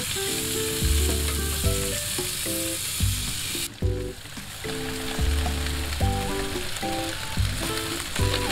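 Sausages sizzling on a charcoal grill, a steady hiss that drops sharply about four seconds in and carries on quieter. Background music with melodic notes and a bass line plays over it.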